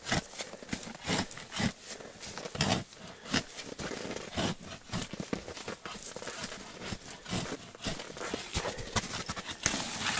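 Hand ice auger boring through thick lake or river ice: a crunching scrape of the blades cutting ice, about twice a second with each turn of the crank. It is slow, hard drilling through ice nearly as thick as the auger is long.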